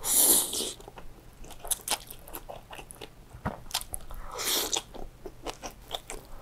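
A person slurping chili-oil chicken noodles, loudly at the start and again about four and a half seconds in, with wet chewing and mouth clicks in between, close-miked.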